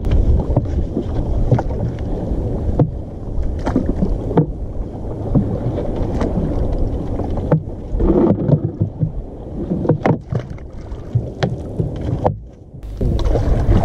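Wind buffeting the microphone in an open wooden rowboat, with scattered knocks and rustles as a sardine gill net is hauled in over the gunwale and shaken out into the boat. A brief lull comes near the end.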